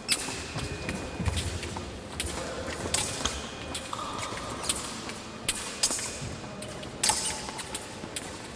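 Épée blades clicking against each other in irregular sharp strikes, with thuds of the fencers' feet on the piste.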